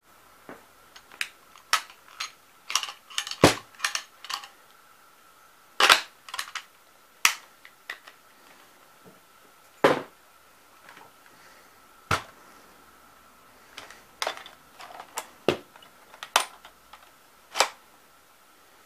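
Irregular sharp clicks and knocks of hard plastic parts being handled and set down on a hard surface, some in quick clusters and a few single louder knocks, over a faint steady high whine.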